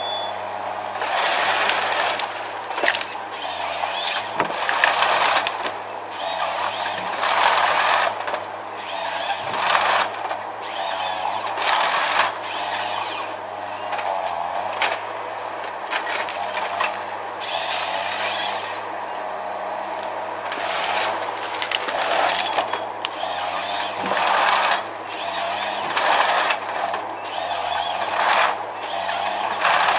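Power saw cutting wood in repeated bursts, the cutting noise swelling and falling every second or two over a steady engine drone.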